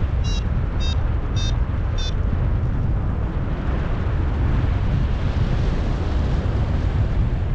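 Strong wind rushing over the microphone in flight, with a paragliding variometer beeping in short pitched chirps about every half second, fading out after about two seconds; a beeping vario is its climb tone, the sign of rising in lift.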